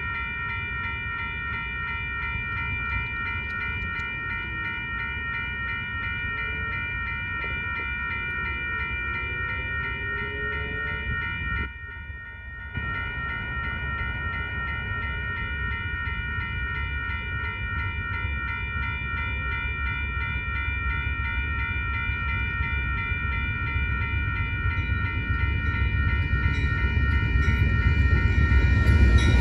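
Railroad crossing warning bells ringing in a fast, steady pulse, cutting out briefly about twelve seconds in and then resuming. Underneath, the rumble of the approaching Amtrak train's GE P42DC diesel locomotives grows steadily louder through the second half.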